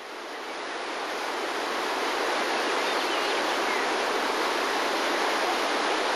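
Steady rushing, water-like hiss of a Yellowstone mud-volcano-area thermal feature, venting steam and churning hot water. It swells up over the first second or two, then holds even.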